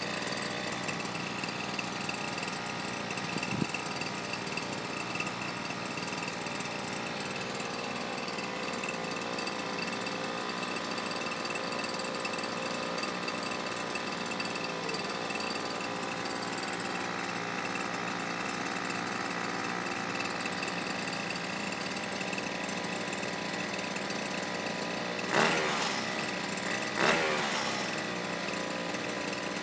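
Brush cutter engine fitted with a homemade silencer, running steadily, with two short, louder surges near the end.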